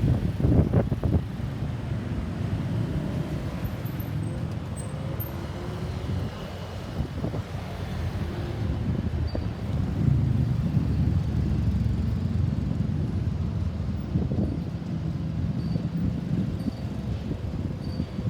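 Road traffic: a steady, uneven low rumble of passing vehicles.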